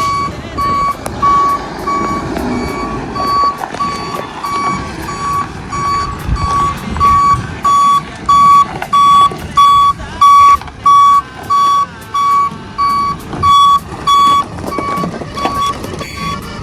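Tow truck's backup alarm beeping evenly, about three beeps every two seconds, over the truck's engine running. The beeps grow louder toward the middle and fade near the end.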